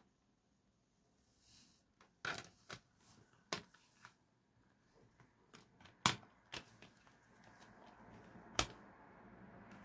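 Clear plastic CD jewel case being handled and opened: about six sharp plastic clicks and taps, spaced irregularly, as the case is turned over and its lid swung open. A faint steady noise grows in the last few seconds.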